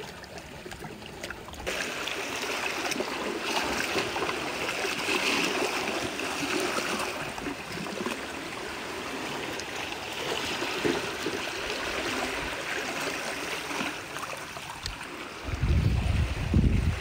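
Shallow seawater trickling and lapping around rocks and sand, a steady watery hiss. A low rumble comes in near the end.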